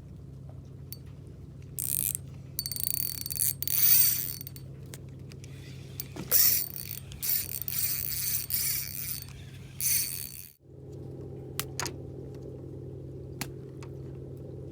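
A fishing reel being cranked in two bouts of ratcheting, clicking noise over a steady low hum, then a few single ticks near the end.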